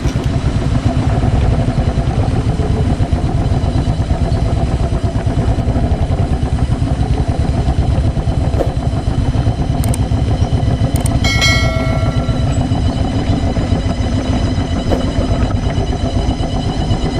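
Motorcycle engine running as the bike is ridden, a dense low pulsing throughout. A horn sounds briefly about two-thirds of the way through.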